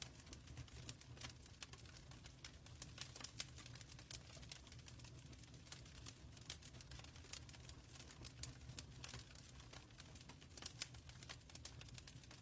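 Wood fire in a fireplace crackling: a steady stream of small, irregular pops and snaps over a low, steady rumble of burning.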